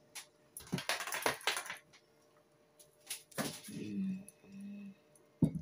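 Scattered light clicks and knocks: a quick cluster about a second in, a few more around three seconds, a short low hum after them, and one sharp click near the end.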